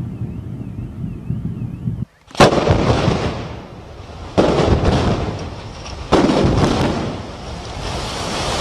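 Demolition explosive charges firing in a tower-block implosion: a sharp blast about two seconds in, then two more at roughly two-second intervals, each trailing off into a rolling rumble. Before the first blast, the low rumble of a collapsing building fades.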